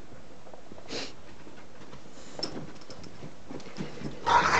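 Dogs playing: a short breathy sound about a second in, small scuffling noises, and a louder noisy outburst from the dogs near the end.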